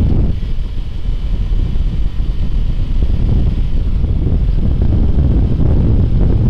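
Wind buffeting the microphone of a motorcycle at a steady cruise, with the bike's engine and tyre noise running underneath as a low, even rumble.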